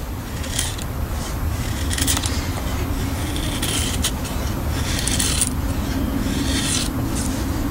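A Blind Horse Knives Bushcrafter blade shaving curls off a wooden board to make a feather stick: a series of short scraping strokes, roughly one a second, over a steady low rumble.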